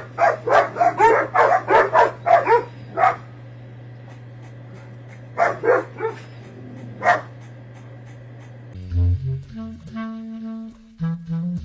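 A dog barking: a quick run of about ten barks, then three more a few seconds later, over a low steady hum. About nine seconds in, instrumental music starts.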